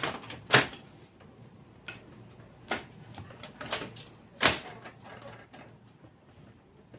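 A few sharp clicks and knocks, like hard parts being handled, the loudest about half a second in and again about four and a half seconds in.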